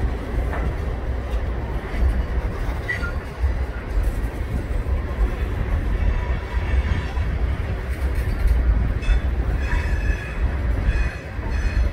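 Freight train of tank cars and covered hopper cars rolling past close by: a steady heavy rumble of steel wheels on rail. Faint high wheel squeal joins in after about nine seconds.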